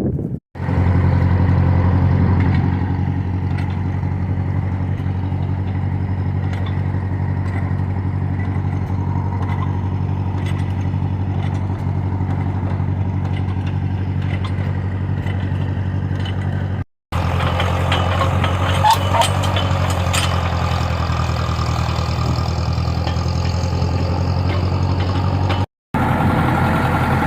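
Diesel engine of a working machine running steadily at constant speed, with a faint clanking about two-thirds of the way through.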